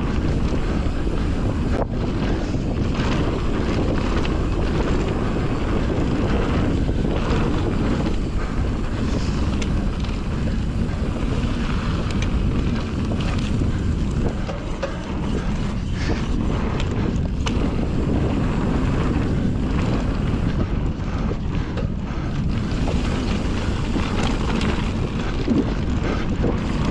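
Wind buffeting the microphone over the rumble of a Fezzari La Sal Peak mountain bike descending a fast dirt trail, with scattered sharp clicks and rattles from the bike.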